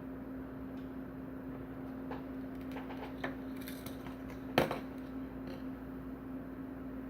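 Small clicks and taps from handling cells and tools while soldering 18650 battery terminals, with one sharper, louder tap about four and a half seconds in, over a steady low hum.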